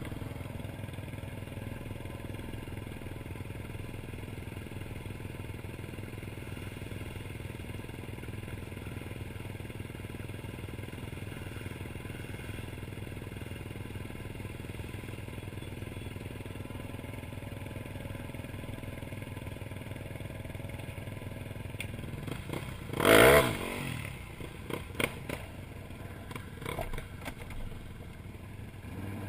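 Can-Am Outlander 1000 ATV's V-twin engine idling steadily. About three quarters of the way through there is a brief, much louder burst, followed by a few light knocks and clatters.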